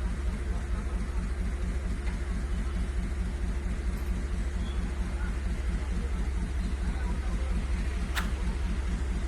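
A heavy engine idling steadily with a fast, even low throb, and a single sharp click about eight seconds in.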